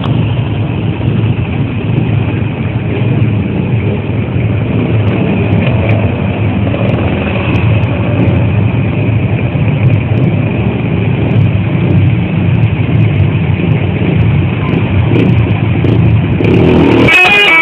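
Loud, steady vehicle engine and road noise, strongest in the low rumble. Just before the end, a bus's multi-tone telolet horn starts to play.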